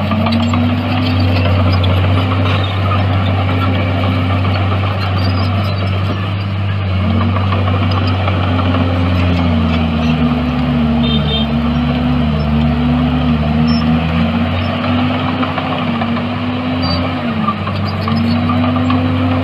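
Komatsu D61EX bulldozer's diesel engine running, its pitch dipping and recovering again and again as it takes load. A second, lower engine tone runs alongside it for several seconds in the middle.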